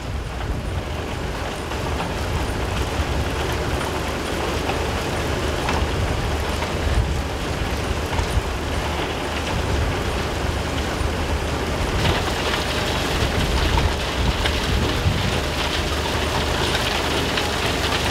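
Recycled sand falling steadily onto a stockpile, a continuous rain-like rush, over the low rumble of processing-plant machinery. The rush turns a little brighter about two-thirds of the way through.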